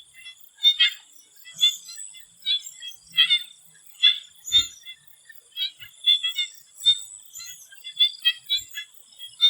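Swamp frogs calling in a chorus: short, sharp calls coming irregularly, several a second, over a steady high-pitched insect drone.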